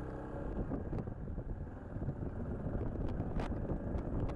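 Yamaha Serow 250's single-cylinder four-stroke engine running as the bike rides along a wet road, with wind noise on the microphone. A few sharp ticks come through in the second half.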